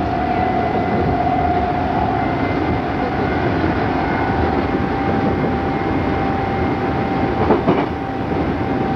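Odakyu 8000 series electric train running, heard from inside the car: a steady rumble of wheels and running gear under a constant high whine. About seven and a half seconds in, a brief louder clatter stands out.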